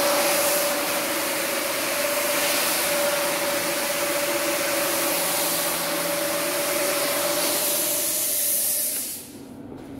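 Single-disc rotary scrubbing machine running, its brush scrubbing a foam-covered rug: a steady motor whine over a wet, hissing scrub. The sound drops away about nine seconds in.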